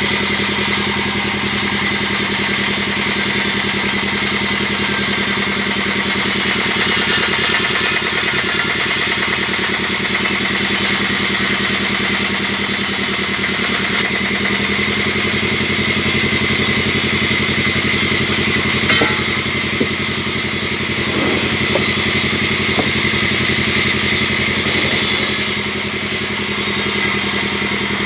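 Band sawmill running with a steady, unbroken machine drone. A few short knocks come in the second half.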